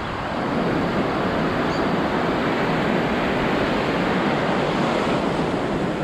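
Sea surf washing in over the shallows, a steady rush of breaking waves that grows a little louder about a second in.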